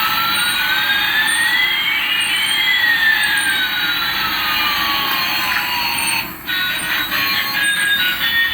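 Electronic toy sound effect: a hissing whoosh with two sweeping tones, one rising and one falling, that cuts out about six seconds in, followed by a run of short electronic beeps.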